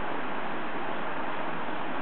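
Steady, even hiss with no gunshot or other sudden sound.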